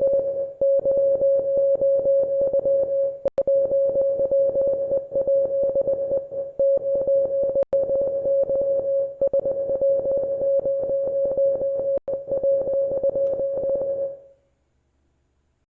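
International Morse code sent as a steady beep of about 600 Hz, keyed on and off in a fast string of dits and dahs, stopping about 14 seconds in.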